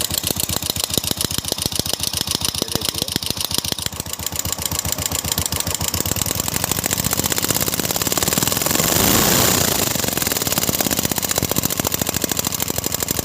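Royal Enfield Classic 350's single-cylinder engine idling with a tick-tick from the engine, and revved up briefly about nine seconds in. The mechanic says such a tick can come from a cut bush in the timing gear, the cam, or a loose valve guide.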